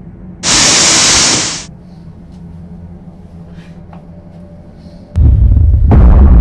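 Horror-film sound design: a low, steady droning hum under a loud burst of hiss lasting about a second just after the start. About five seconds in, a loud deep boom hits and holds on as a rumbling stinger.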